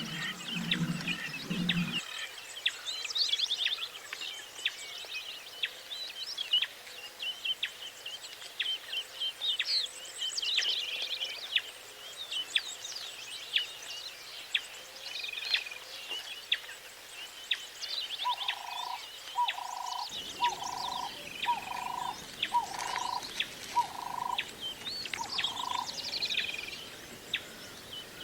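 Several small birds chirping and singing in quick, overlapping calls. Late on, a run of seven short, lower notes about a second apart sounds under them.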